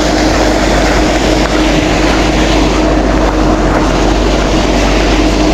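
Loud, steady machine drone: a constant hum under a wide, even rushing noise, with no rise or fall in level.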